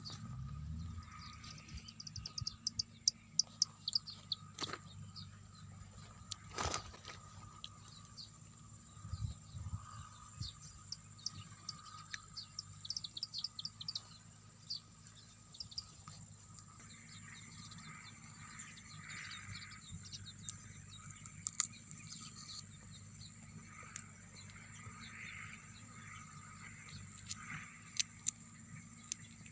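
Birds chirping in quick runs of short, high notes, over a faint, steady, high-pitched insect drone, with a few scattered clicks.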